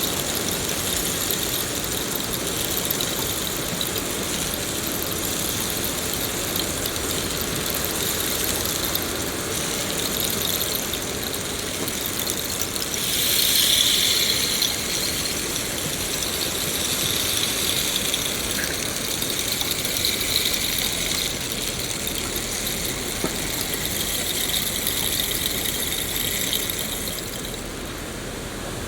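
Steady rain falling, an even hiss, with a high shrill tone layered over it that swells briefly about halfway through.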